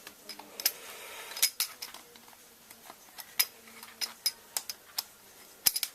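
Small metal tools and model-car parts clicking and clinking as they are handled, in a string of sharp, irregular taps.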